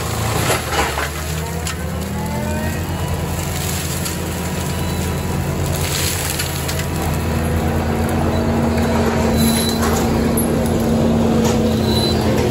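Skid steer forestry mulcher running hard, its diesel engine and spinning cutter drum grinding brush, with a few sharp cracks of breaking wood. The pitch rises a second or two in, and a steady whine holds through the second half.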